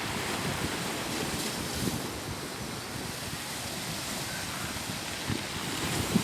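Sea waves washing on the shore, with wind buffeting the microphone in irregular low rumbles.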